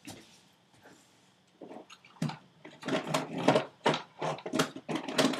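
A dog barking in short yaps, several a second, starting about two seconds in after a quiet stretch.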